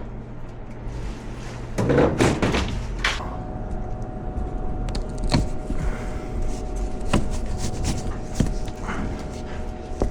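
Scattered knocks, clicks and clatter of objects being handled and set down, with a louder stretch of clatter about two seconds in. A steady electronic tone, with some background music, starts about three seconds in.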